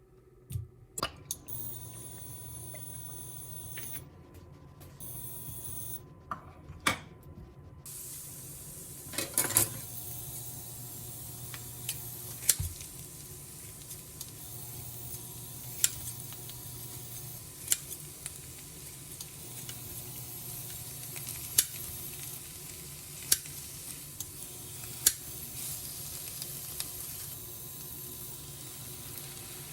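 Food sizzling in a frying pan, with a cooking utensil knocking against the pan every couple of seconds. A few clinks of dishes come first, and the sizzle sets in about eight seconds in.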